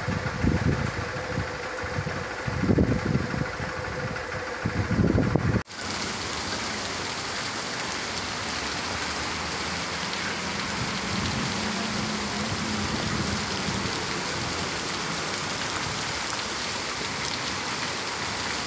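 Heavy rain pouring onto a paved street, with irregular low rumbling surges for the first few seconds. After a sudden cut it becomes a steady, even hiss of downpour, and a car drives through the water about ten seconds in.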